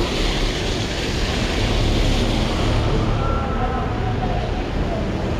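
Traffic on a rain-wet city street: car tyres hissing on the wet road over a steady low rumble. The hiss is loudest in the first half, as a car passes close.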